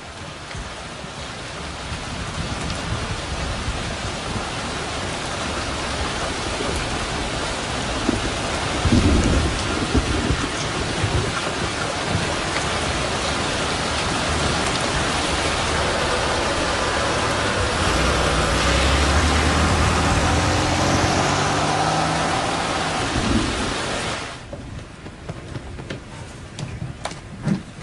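Heavy rain falling steadily, swelling in over the first couple of seconds, with low rumbles of thunder about nine seconds in and again around eighteen to twenty seconds. The rain cuts off abruptly about twenty-four seconds in, leaving quieter room sound with a few small knocks.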